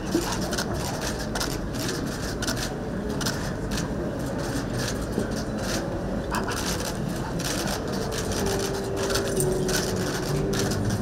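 Steady ambient noise of a large crowded hall, broken by frequent quick sharp clicks and small shuffles. A faint held tone comes in about eight seconds in.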